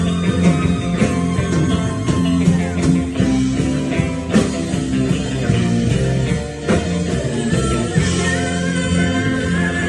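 Live rock band playing, with electric guitar, bass and drums and a steady beat. A long high note is held from near the end.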